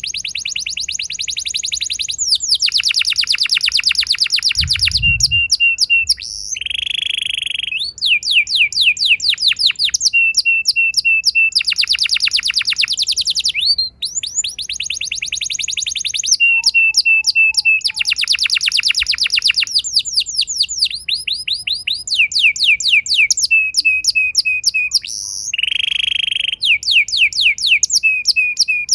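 Canary singing a long, continuous song of fast rolling trills, runs of repeated chips and short buzzy notes, the rolls ("ngeroll") that such a lure recording is used to trigger in other canaries. A brief low thump comes about five seconds in.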